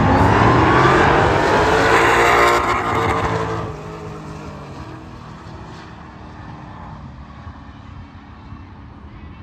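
Two cars, a Dodge Challenger Hellcat with its supercharged V8 and a second car, accelerating flat out down a drag strip side by side. The engines rev up through the gears in repeated rising sweeps, loud for the first three and a half seconds, then fade to a distant drone as the cars run away down the track.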